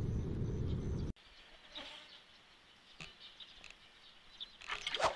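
Low wind rumble on the microphone that cuts off abruptly about a second in, leaving a quiet outdoor background with faint, scattered high chirps.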